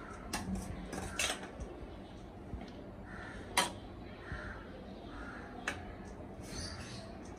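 Metal spoon scraping and clinking against a steel colander and an aluminium cooking pot as cooked rice is scooped out and spread, with a few sharp clinks, the loudest about three and a half seconds in.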